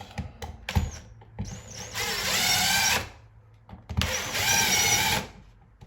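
Cordless drill-driver running in two short bursts of about a second each, driving a receptacle's mounting screws into the electrical box. Small clicks and handling knocks come before the first burst.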